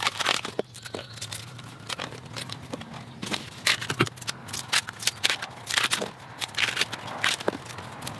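Sheaths being peeled and torn off fresh bamboo shoots: irregular crackling and tearing with sharp snaps.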